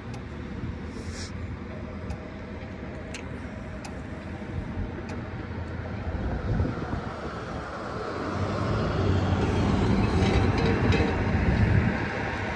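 Street traffic: low road and engine noise that builds over the last few seconds as a box truck drives through the intersection.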